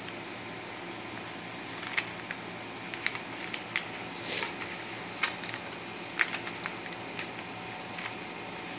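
Paper banknotes handled and spread out on a table: scattered short rustles and taps, with a longer rustle a little before the middle, over a steady background hiss.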